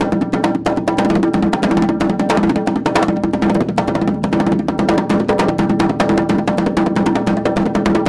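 Fast hand drumming on a djembe: dense, rapid strokes with no pause, over a steady sustained tone underneath.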